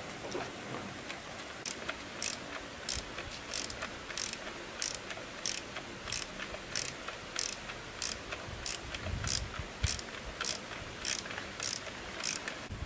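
Ratchet socket wrench on an extension turning a bolt in a brush cutter's engine housing, its pawl clicking on each back-stroke in an even rhythm of short bursts, a little under two a second. A few dull knocks come near the middle.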